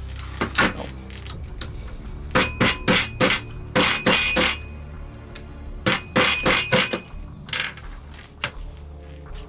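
Rubber mallet tapping a pin punch to drive out the front-sight pins of an airsoft M4: several quick runs of sharp metallic taps, each ringing briefly.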